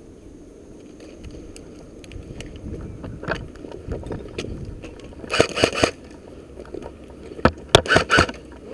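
Airsoft guns firing: two quick strings of about four sharp shots each, one about five seconds in and one near the end, over rustling and handling noise of a player moving.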